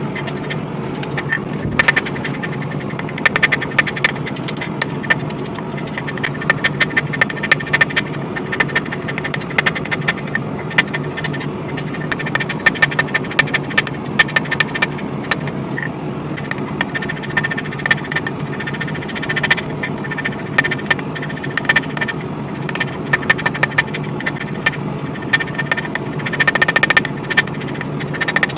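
Hammer blows on hot coil-spring steel over an anvil, ringing sharply in irregular runs of strikes as the blade's bevels are forged, with a quick flurry of blows near the end. Under them a propane forge burner runs steadily.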